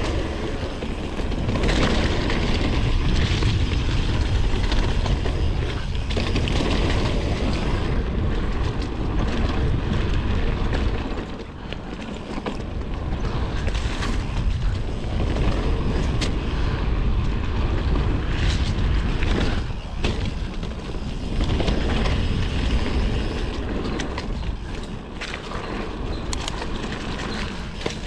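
Riding noise from an Intense Sniper T Pro mountain bike on a trail: wind rumbling over the action camera's microphone, tyres rolling, and scattered clicks and rattles from the bike. The rumble eases briefly about eleven seconds in.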